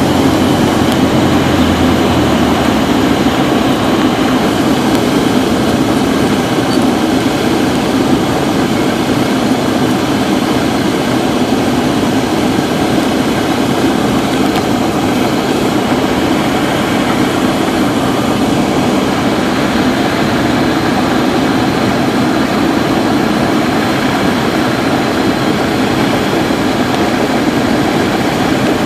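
Cessna 172's engine and propeller running steadily, heard inside the cockpit, as the plane descends on final approach to land.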